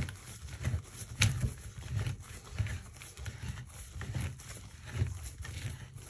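White plastic toilet repair flange being twisted and pressed down into the drain pipe by a gloved hand: irregular dull knocks and scrapes of plastic on the pipe and subfloor, about one or two a second, with a sharper click about a second in.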